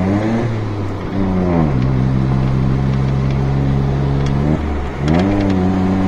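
Tata Altroz CNG's three-cylinder engine through an aftermarket valvetronic exhaust, heard from inside the moving car. The revs climb, fall about a second and a half in, hold steady, then dip and climb again near the end.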